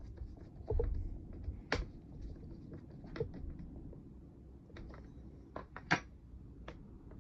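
Scattered sharp clicks and light knocks, with a dull thump about a second in, as tools and the plastic handle parts of a Stihl MS 200T chainsaw are handled during reassembly.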